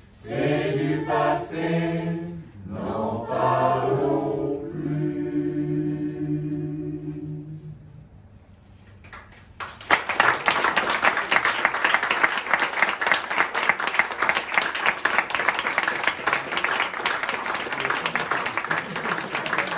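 Mixed a cappella choir singing its closing phrases and ending on a long held chord that fades away about eight seconds in. After a short hush, audience applause breaks out about ten seconds in and goes on.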